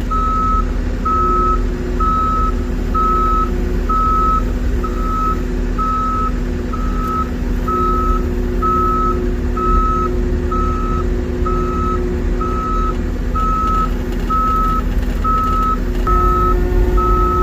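Reverse alarm on a Western Star 49X log truck beeping steadily, a little more than once a second, as the truck backs up, over the steady drone of its diesel engine.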